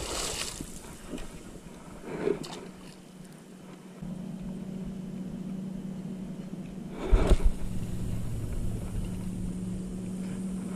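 A splash as a released striped bass hits the water, then from about four seconds in a steady low engine hum, with one sharp knock about seven seconds in.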